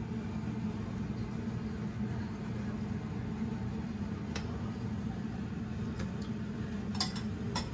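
A steady low mechanical hum runs throughout, with a few light clicks of a ladle against a stainless steel stockpot of soup, the clearest two near the end.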